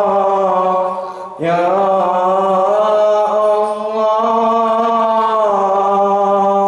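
A young man singing sholawat, an Islamic devotional song, close into a microphone in long, drawn-out notes. He breaks briefly for a breath about a second and a half in, then carries on.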